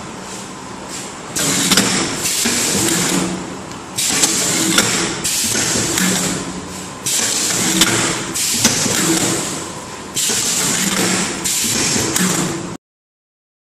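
A semi-automatic rectangle paper baking cup forming machine running through its work cycle, with loud stretches of about two and a half seconds, each starting suddenly and holding sharp clicks, repeating roughly every three seconds over a steady machine hum.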